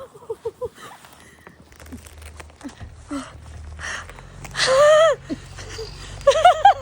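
High-pitched young women's voices crying out in short unworded calls, the loudest a drawn-out high cry about five seconds in, over a low steady hum.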